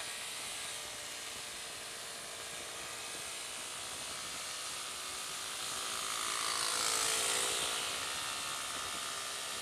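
Motorcycle engine running steadily under way, heard from the rider's own bike over rushing wind and road noise that swells about two-thirds of the way through.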